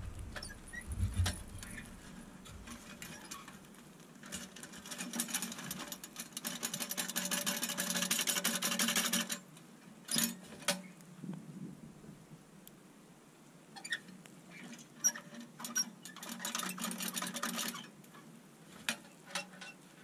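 Petromax Loki 2 sheet-steel tent stove being tipped and shaken to empty its ashes: several seconds of fast metallic rattling and scraping, then a few sharp knocks, and later another short rattle.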